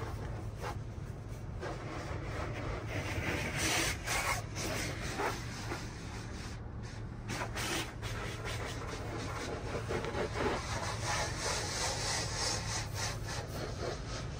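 Soft-cloth strips of a tunnel car wash's mitter curtain swishing and rubbing across the windshield and body, heard from inside the car. The rubbing comes in repeated surges over a steady low hum.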